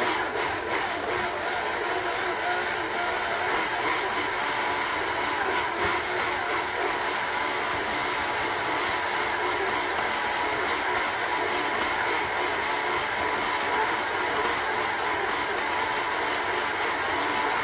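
Electric stand mixer running steadily, its flat beater creaming softened butter with brown and white sugar in a stainless steel bowl.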